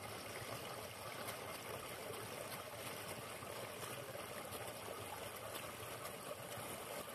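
Small forest stream pouring over a low cascade into a pool: a steady rush of running water.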